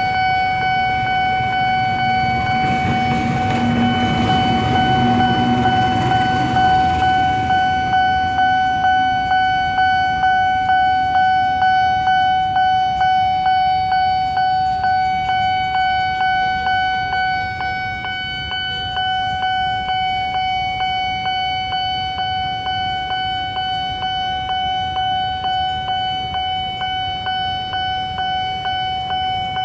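Japanese-made Nippon Signal electronic railway-crossing bell ringing in a steady, even rhythm, a little under two strokes a second. A passing train's rumble swells and fades over the first several seconds.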